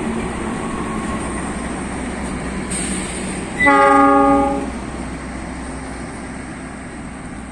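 Train horn sounds one blast of about a second, a little past halfway, over the steady rumble of a train running on the tracks.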